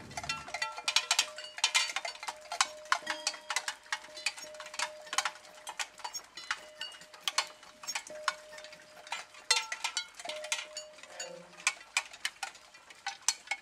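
Experimental soundtrack of irregular metallic clicks and ticks, several a second, over a faint steady high tone, with a few short low pitched notes near the end.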